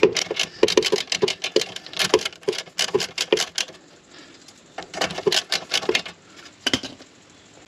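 Ratchet and 19 mm socket clicking in quick, rapid strokes as they back off the loosened nut on a car's tie rod end. There is a steady run of clicks for about three and a half seconds, a short pause, and a few more clicks around five seconds in.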